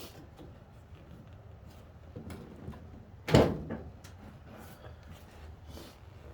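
Faint handling and rustling noises, then one loud clunk about three seconds in, as a car seat's backrest is worked forward.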